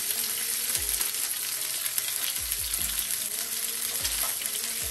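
Salmon fillet sizzling steadily in oil in a nonstick frying pan over a low gas flame, with fine crackling pops.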